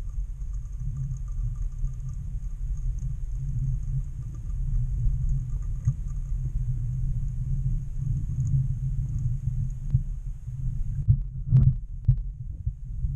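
Muffled low rumble and throbbing of lake water moving around a submerged underwater camera, with a faint steady high whine that stops near the end and a brief knock shortly before it.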